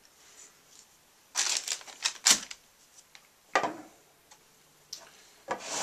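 Handling noise from a microphone shock mount: several short bursts of clicks and light clattering knocks as it is turned over in the hands and set down on a desk.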